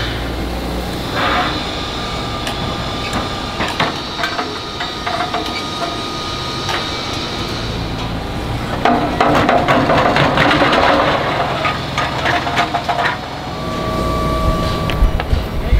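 Steel casting flasks clanking and rolling on a foundry roller conveyor over a steady machine hum, with scattered metal knocks and a stretch of dense rattling and clattering from about nine seconds in.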